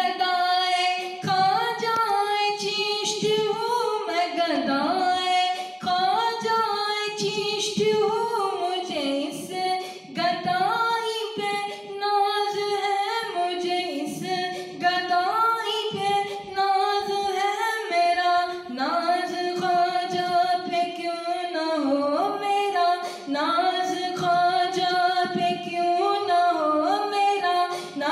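A solo male voice singing a devotional manqabat unaccompanied, in long held notes that bend and waver in ornamented turns, with brief breaths between phrases.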